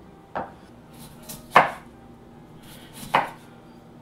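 Kitchen knife slicing peeled potatoes on a wooden cutting board: three sharp chops about a second and a half apart, the middle one the loudest.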